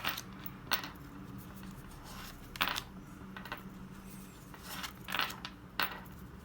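Pokémon trading cards and booster-pack foil being handled: several short, sharp rustles and snaps spread through, over a steady low hum.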